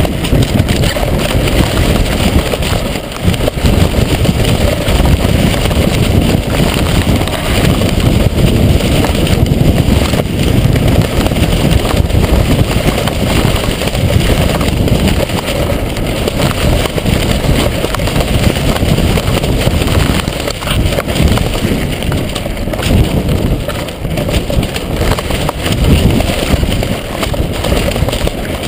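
Strong wind buffeting the microphone of a GoPro mounted on a flying box kite: a loud, steady low rumble that swells and dips with the gusts.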